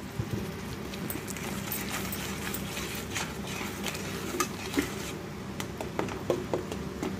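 Wooden spatula stirring and scraping around an aluminium kadai, with irregular light knocks against the pan. Underneath is a steady sizzle of the mashed banana and sugar cooking in the pan.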